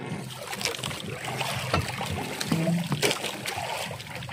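Wet gill net being handled aboard a small wooden outrigger boat: water trickling and dripping off the mesh, with scattered knocks and clicks against the hull.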